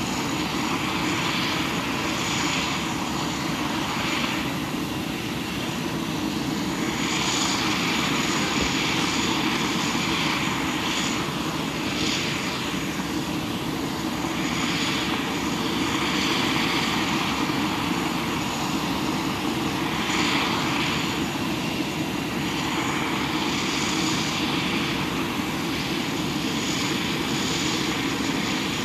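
Parked jet aircraft running on the apron: a steady, loud rushing noise with a thin, high, constant whine on top.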